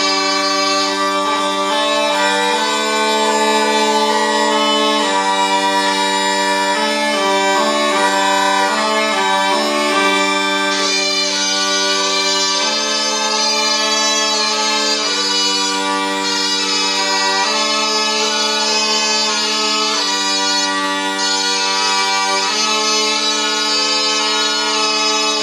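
Zampogna, the southern Italian bagpipe, playing a melody over steady drones.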